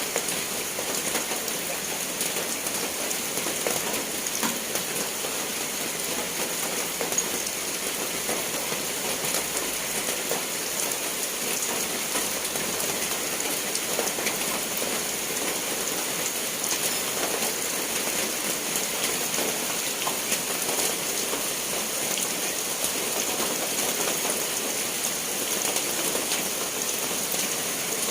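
Steady rain falling and pattering on surfaces, with many small drop taps.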